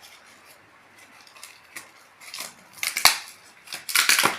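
Shipping packaging being opened by hand: a series of short sharp crackles and rips, loudest about three seconds in and again around four seconds.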